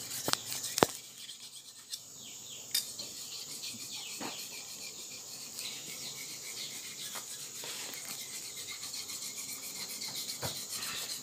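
Steady high-pitched insect chirring, with two sharp clicks within the first second.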